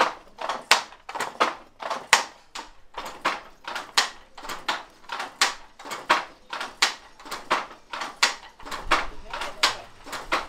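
Wooden foot-pedal handloom working: a steady rhythm of sharp wooden clacks from the shuttle and beater, about three a second.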